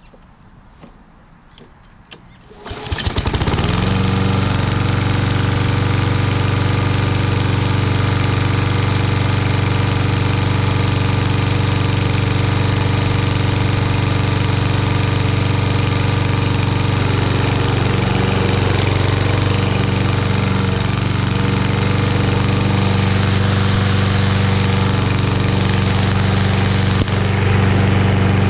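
A 2013 Toro Recycler lawnmower's Kohler Courage XT6 149 cc engine starting right up about three seconds in, then running steadily at full throttle.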